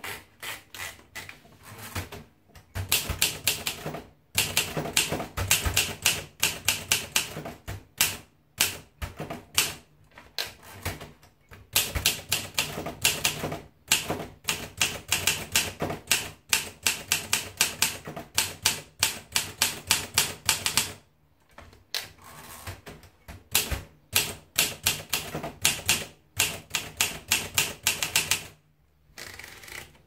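Olympia SM3 manual portable typewriter: a few clicks from the platen knob as the paper is wound in, then fast keystrokes in runs of several seconds with short breaks between them.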